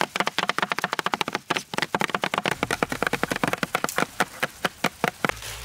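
A knife chopping rapidly on a cutting board, a fast even run of about eight to ten strokes a second that stops near the end.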